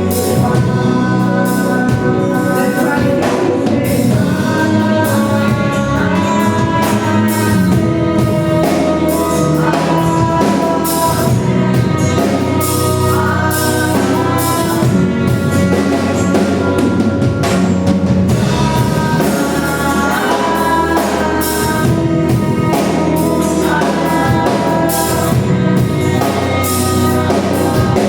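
Gospel worship song: voices singing a melody over a band with a drum kit keeping a steady beat.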